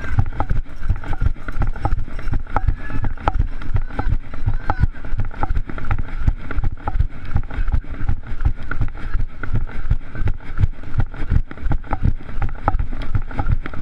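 A runner's footfalls at race pace, about three a second, jolting a hand-held action camera, over a steady low rumble of air on the microphone.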